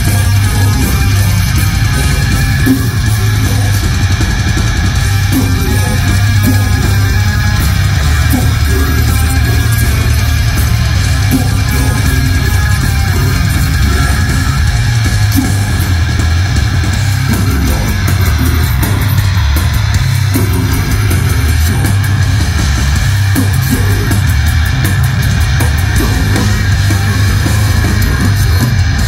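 Heavy metal band playing live and loud, with electric guitar and drums.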